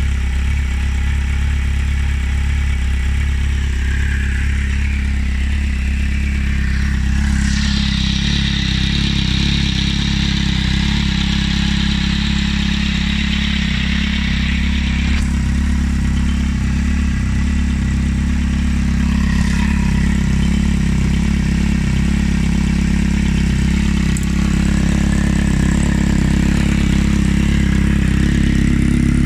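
Kawasaki Z750R's 748 cc inline-four idling steadily through an aftermarket slip-on silencer.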